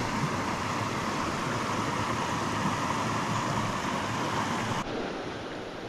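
Steady rush of flowing creek water, which drops abruptly to a quieter, duller rush about five seconds in.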